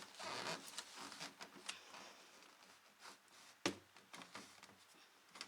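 Faint plastic scraping and clicking as the hose is worked off a portable air conditioner, with one sharp knock about three and a half seconds in.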